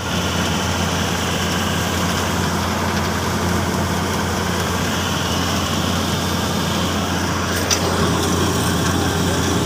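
Sunflower combine harvester running steadily, its engine giving a low hum under a dense mechanical din as threshed sunflower seeds pour into the grain tank around the turning auger. A single sharp click about three-quarters of the way through.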